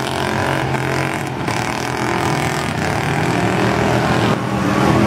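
Engines of several stock cars running together in a steady drone as they push a giant ball across a dirt arena.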